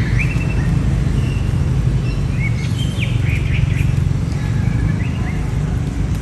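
Scattered short, high chirping calls, rising and falling, over a steady low rumble.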